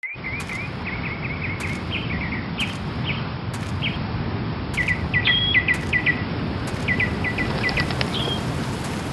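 Small birds chirping in quick runs of short high notes, busiest in the middle, over a steady low background noise.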